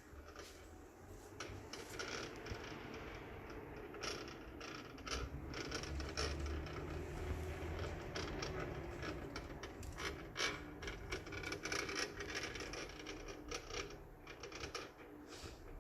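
Electrical distribution panel giving off an irregular crackling, scraping noise, a dense jumble of quick ticks and rasps over a low hum. The cause of the noise is unknown.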